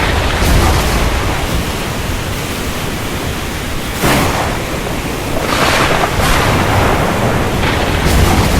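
Steady heavy rain with rolling thunder: a sudden crack about four seconds in, followed by swelling rumbles.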